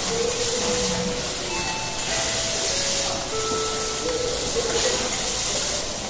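Oysters and vegetables sizzling on a hot teppanyaki steel griddle, a steady hiss, while two metal spatulas stir and scrape them across the plate.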